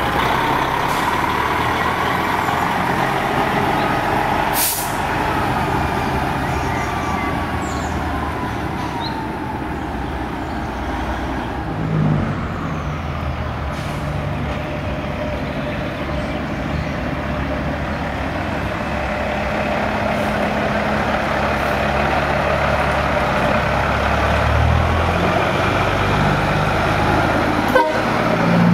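Big American Peterbilt conventional trucks with open straight-pipe exhausts running slowly past, their diesel engines getting louder near the end as another truck approaches. There is a short hiss about five seconds in.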